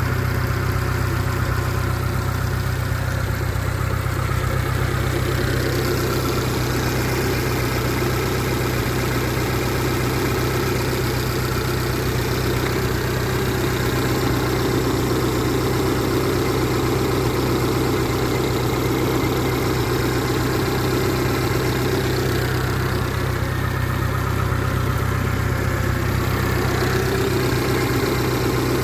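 Suzuki DF70 four-stroke outboard motor idling steadily at an even speed; the owner says its water pump seal is bad.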